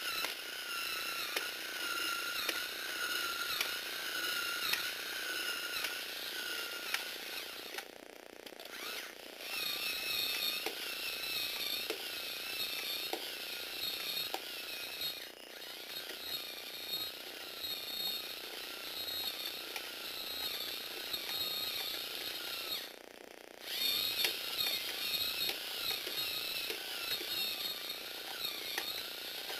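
Small electric motor in a Tamiya four-speed crank gearbox whining as it drives a Lego Technic eight-legged walking robot, with the plastic gears and legs clicking as it walks on a wooden floor. The motor stops briefly twice, about eight seconds in and again after about twenty-three seconds, and its whine is higher after the first stop.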